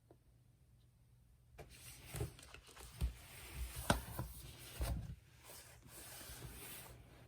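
Rustling and handling noise with a series of light clicks and knocks, starting after a short quiet spell and easing off near the end; the sharpest knock comes about four seconds in.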